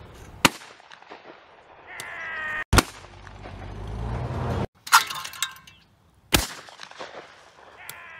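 Four 12-gauge shotgun shots, each a single sharp blast, spread over about six seconds. A drawn-out call sounds just before the second shot, and another starts near the end.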